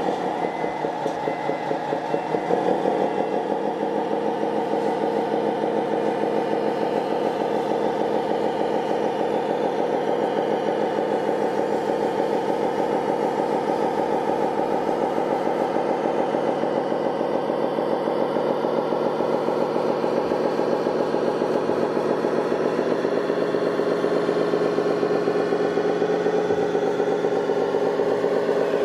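Sound module of a radio-controlled Scania model truck playing a diesel engine sound through its small loudspeaker: a steady, evenly pulsing engine run, shifting slightly in pitch about three-quarters of the way through as the truck drives slowly.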